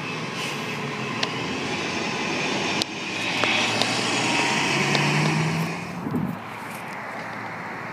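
Transit bus engine running as the bus pulls away close by, with a low drone and a higher whine. It is loudest as the rear of the bus passes, then drops off about six seconds in.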